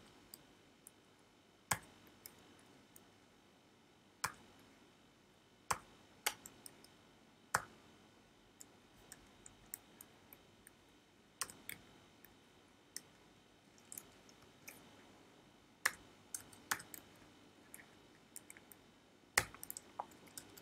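Sparse, irregular keystrokes on a computer keyboard: single sharp clicks with gaps of a second or more between them, a few strokes louder than the rest.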